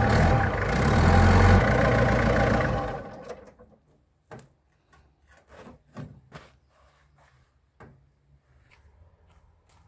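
An old truck's engine running steadily, then dying away about three seconds in. After that come a few scattered light clicks and knocks.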